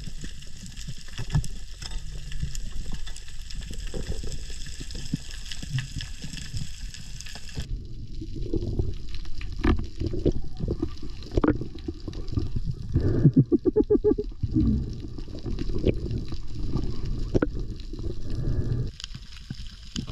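Underwater sound of a reef dive: swirling water noise and gurgling. For the first several seconds a steady crackling hiss sits over it. After a change in the sound, low water movement remains, with scattered clicks and a quick run of pulses about two-thirds of the way through.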